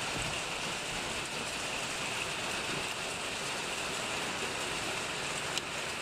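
Steady rain falling, an even hiss with no let-up.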